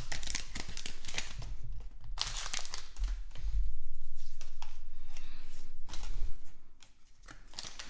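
Crinkling of a torn-open Donruss football fat pack wrapper as the stack of trading cards is slid out, followed by the cards rustling and scraping as they are handled. The sound comes in irregular scratchy bursts and goes quieter near the end.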